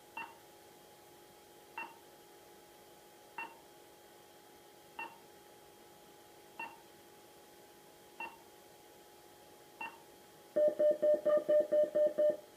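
WB1401 warning broadcast receiver loudspeaker playing its confidence tick, a short click about every 1.6 seconds over a faint hum, the signal that the warning line is live. Near the end a loud, rapid run of beeps, about six a second, starts up.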